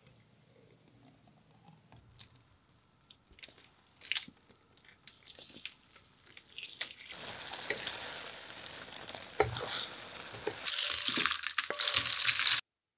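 Kitchen food-preparation sounds: faint pouring and a scattering of small clicks and taps, then a growing hiss. Near the end, cooked sea snails clatter in their shells as they are tipped from a wok into a ceramic dish. The sound cuts off suddenly.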